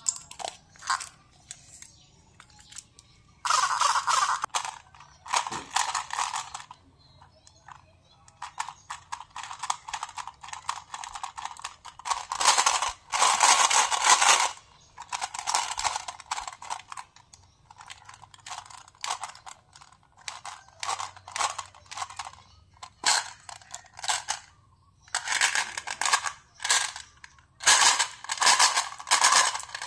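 Small hard round candies rattling against the clear plastic globe of a toy gumball dispenser, in repeated bursts of rapid clicking and clattering a second or two long, separated by short pauses.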